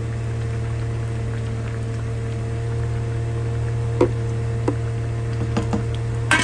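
Egg curry gravy bubbling at a simmer in a pan, with a spatula knocking and scraping against the pan a few times from about four seconds in, over a steady low hum.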